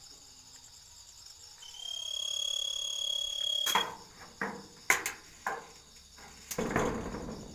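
Steady high-pitched trilling like a cricket's, which the listeners doubt is really a cricket. About two seconds in, a clear high whistle-like tone holds for about two seconds. It is followed by a few sharp knocks and a brief rustle near the end.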